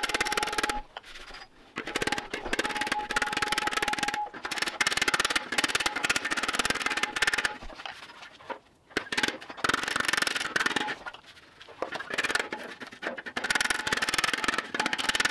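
Flat-faced body hammer tapping rapidly on a steel fender over a heel dolly pushed up from behind, in dense runs of blows broken by short pauses. The sheet metal rings with a steady tone, the ring that shows the dolly is touching behind the panel.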